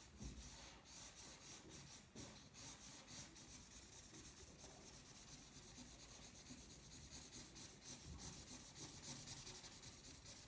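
Faint scratching of a felt-tip marker on paper, many short strokes in quick succession as an area is coloured in.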